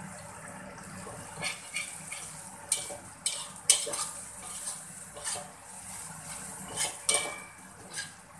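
Metal slotted spatula scraping and knocking against a wok while stir-frying a chili, garlic and lemongrass paste, a run of irregular clanks and scrapes starting about a second and a half in, loudest in the middle and again near the end. A faint steady sizzle of frying sits underneath.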